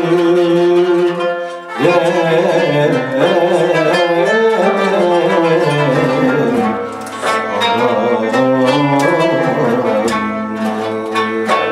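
Turkish classical ensemble playing a şarkı in makam Kürdilihicazkar: kanun, clarinet and oud together, with a man singing.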